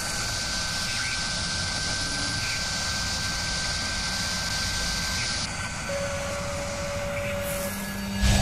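Sound-designed machining effect for an animated logo sting: a steady whirring hiss like a spindle cutting metal. The hiss drops away about two-thirds of the way through, a brief steady tone sounds, and a loud hit lands near the end as the logo appears.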